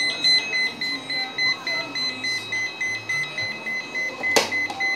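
Repetitive electronic beeping tune: a high tone pulsing on and off several times a second, with a sharp knock about four seconds in.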